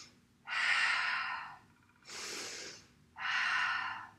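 A woman breathing deeply and audibly, in and out: three long breaths of about a second each, the middle one softer than the other two.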